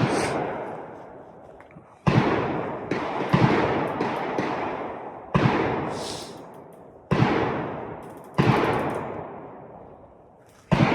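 Gunshots at a shooting range: about nine single shots fired at an irregular pace, each one ringing out with a long echo that dies away over a second or more.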